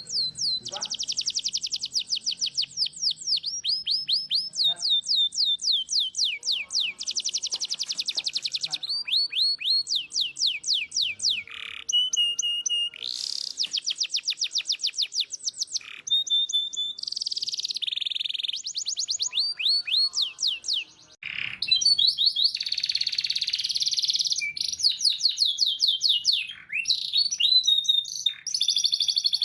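Domestic canary in full song: long fast trills of repeated high notes sweeping downward, several a second, alternating with buzzy rolling phrases and chirps, with a brief break about twenty-one seconds in.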